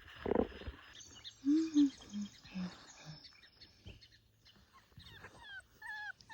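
A puppy whimpering in short, high, wavering whines near the end, after a brief rustle and a few short low sounds.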